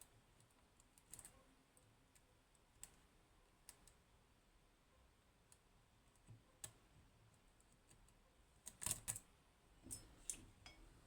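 Faint, scattered clicks of a lock pick working the pins of a 15-pin Codkey Locksys lock, with a louder flurry of clicks about nine seconds in.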